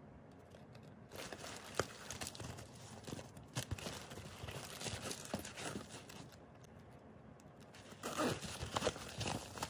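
Rustling and crinkling of a clear plastic packaging bag and a black mesh bag being handled, with small irregular clicks and a louder burst of crinkling near the end.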